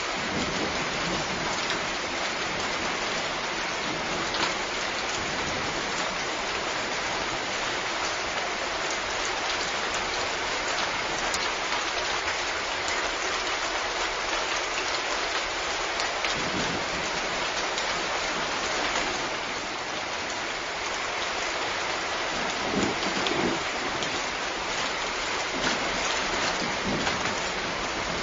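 Steady heavy rain falling with a dense, even hiss. A few brief low rumbles come through about three-quarters of the way in.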